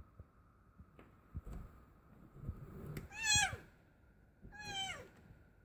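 Calico cat in labour meowing twice, each a falling cry, the first about three seconds in and the second about a second and a half later. Soft bumps and rustling of bedding come before the first cry.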